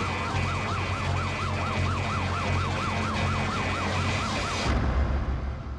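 Electronic siren in a fast yelp, its pitch rising and falling about four times a second, over a low rumble. The siren cuts off suddenly near the end, leaving only the low rumble.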